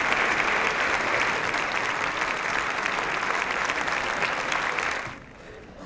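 Many people in an assembly applauding together in steady clapping, which stops fairly abruptly about five seconds in.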